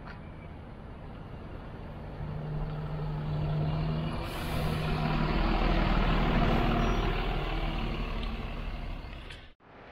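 City bus driving past close by, its engine and tyres getting louder as it passes, with a short hiss of air about four seconds in.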